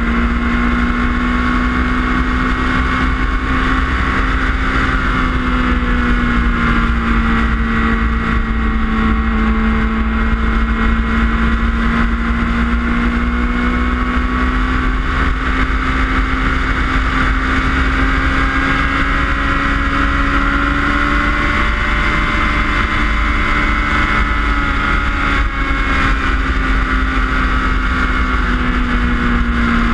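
Suzuki Hayabusa's inline-four engine running at highway cruising speed, its pitch drifting gently up and down, with steady wind rumble on the fairing-mounted camera.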